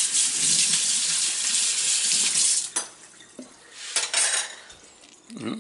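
Kitchen faucet running into a stainless steel sink as a spoon and strainer are rinsed under it, shut off sharply about three seconds in. Quieter clinks of utensils and a short splash follow.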